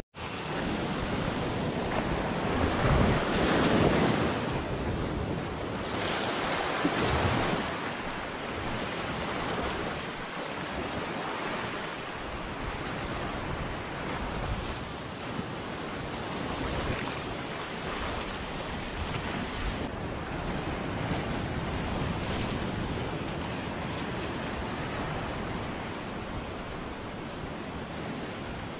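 Small waves washing up onto a sandy beach, with wind on the microphone. The wash surges louder twice in the first several seconds, then settles into a steady hiss.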